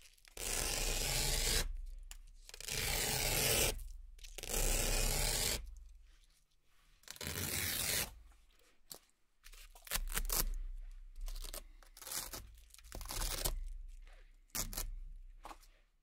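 Velcro hook-and-loop strips being peeled off one by one, each pull a ripping tear. Four long peels come in the first eight seconds, then a run of shorter, quicker rips.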